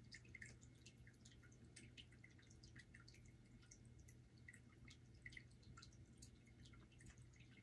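Near silence: faint room tone with a low steady hum and scattered tiny ticks.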